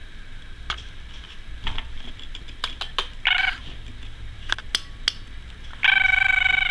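Budgerigar chattering: scattered sharp clicks and ticks, a short flat buzzy call about three seconds in, then a longer, louder buzzy call near the end.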